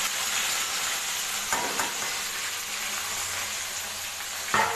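Sliced okra (lady's fingers) frying in hot oil in a kadai: a steady sizzle, with two short knocks, one about a second and a half in and a louder one near the end.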